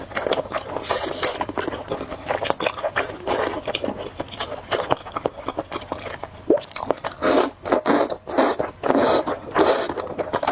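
Close-miked mukbang eating of spicy noodles: slurping and chewing in a quick, uneven run of short sounds and clicks.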